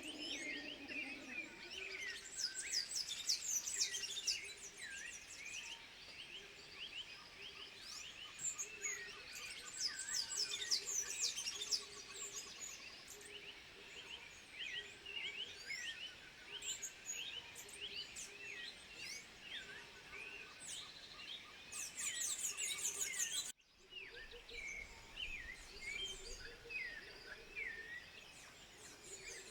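A dense chorus of high-pitched chirps, whistles and quick rising and falling calls from many animals at once, with a low note repeating about once a second underneath. The sound cuts out abruptly for a moment a little past two-thirds of the way through.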